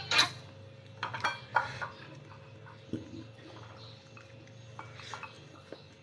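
A few light clinks and taps of a ceramic bowl and plates while eating rice by hand, loudest in the first two seconds and then sparser and fainter.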